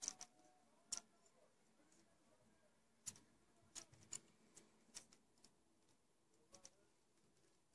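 Faint, irregular clicks and crinkles of aluminium foil tape being trimmed with a small knife and pressed onto a lure, about a dozen in all, the sharpest at the start and about a second in.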